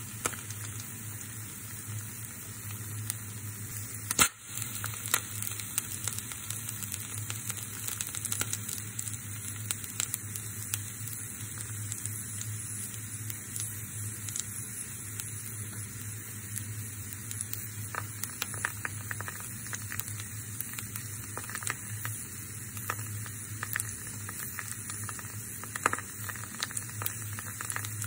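An egg frying in hot oil in a pan: steady sizzling with frequent small crackles of spitting oil, one louder pop about four seconds in.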